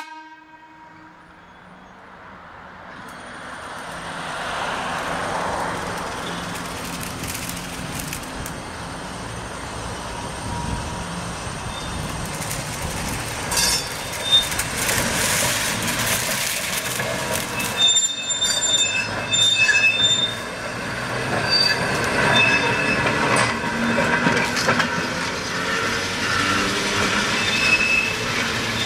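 Green box-cab electric trolley car C-145 rolling on curved track. Its steel wheels squeal in thin, high, on-and-off tones, mostly in the second half, with a few sharp clicks from the rails. The sound builds over the first few seconds as the car comes closer.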